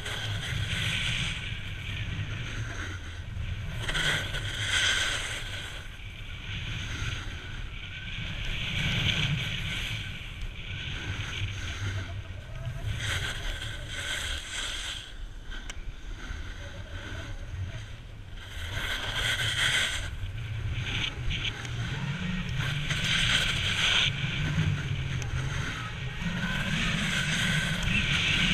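Snowboard sliding and carving down packed snow, its edge scraping and hissing, with wind rushing over the action camera's microphone. The noise swells and fades every few seconds.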